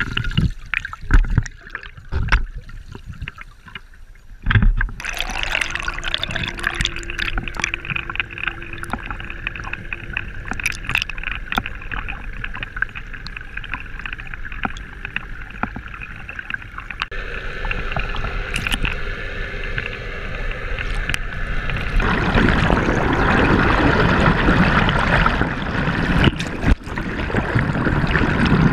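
Muffled sound from a camera held under river water: several knocks and bumps in the first few seconds, then a steady rush of water with a faint hum under it, growing louder from about two-thirds of the way through.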